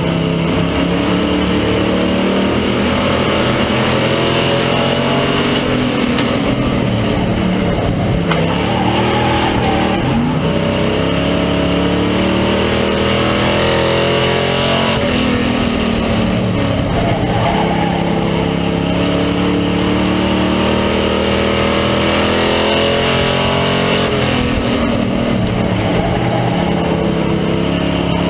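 Stock-class circle-track race car's engine heard from inside the cockpit under racing load, the revs dropping off and climbing again about three times as the car lifts for the turns and accelerates down the straights. The driver describes the engine as sick and going south.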